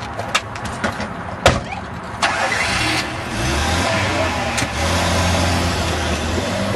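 Two sharp thumps, then a car engine starting about two seconds in and running steadily.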